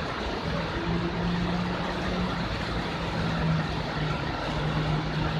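Heavy tropical rain pouring down onto wet pavement and vehicles, a steady hiss of rainfall. About half a second in, a low steady hum joins it and continues under the rain.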